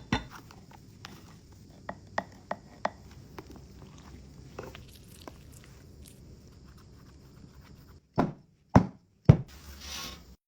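Kitchen food-prep sounds: scattered light clicks and knocks, then three loud chops on a cutting board about half a second apart near the end, followed by a brief rustle.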